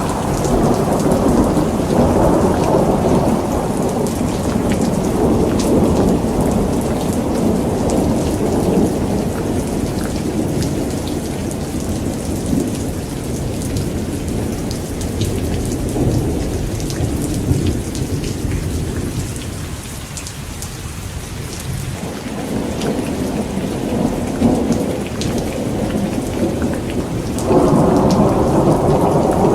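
Steady heavy rain with low rolling thunder rumbling through it. The rumble fades for a few seconds about two-thirds of the way in, then swells up abruptly near the end.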